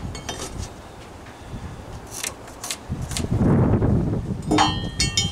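Scattered light metallic clicks and clinks from a steel tape measure being handled against a wooden post, with a cluster of clicks and a brief metallic ring near the end.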